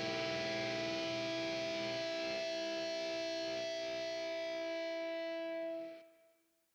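A single distorted electric guitar chord held and ringing at a steady level, fading out quickly about six seconds in.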